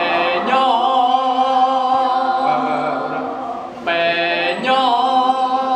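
Unaccompanied male singing in long held notes, as a song is taught to a group; a new phrase begins about four seconds in.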